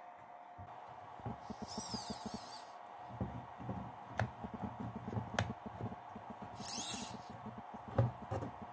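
Homemade RC-boat anchor winch being turned by hand: its spool, belt and pulleys give a run of irregular rattling clicks with a few sharper clicks and two brief high scratchy squeaks.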